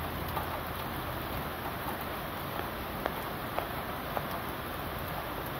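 Steady rain hiss, with about five sharp taps of single drops landing close by.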